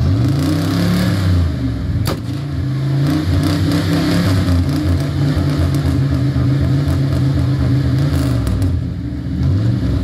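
A 1977 Chrysler New Yorker's 7.2-litre V8 being revved: a quick blip in the first second, then held at raised revs for several seconds, dropping back near the end with one more short blip just before it ends. A single sharp click about two seconds in.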